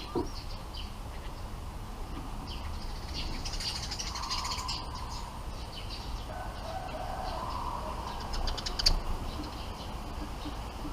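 Bulbuls chirping at the nest: scattered short chirps, with a rapid rattling burst about four seconds in and a louder one near nine seconds.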